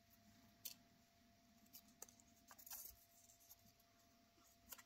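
Near silence with a few faint, brief crinkles of a small folded paper slip being unfolded by hand.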